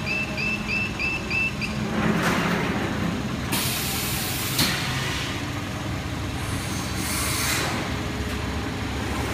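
Plastic vacuum forming machine in its forming cycle: a rapid electronic beeping for the first couple of seconds, then sharp hisses of compressed air from its pneumatic system, about two seconds in, a longer, louder one around four seconds and another near seven seconds, over a steady machine hum.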